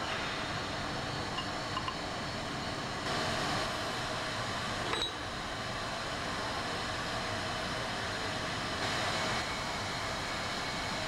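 Steady workshop background hiss with a few faint clicks and one sharper metal clink about five seconds in. The clinks come from hand tools on the steel jacking-screw brackets of a centrifugal compressor's head cover as the screws are worked.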